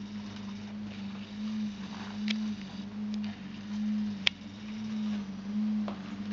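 A low hum that swells and fades about once a second, with faint rustling and a couple of sharp clicks as the puppies move about the whelping box round the steel feeding bowl.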